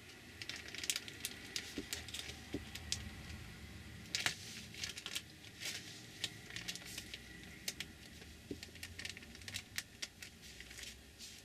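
Paper rustling and crinkling with scattered light clicks and taps as a photo print and paper are handled and a glue stick is rubbed on, with one sharper snap about four seconds in.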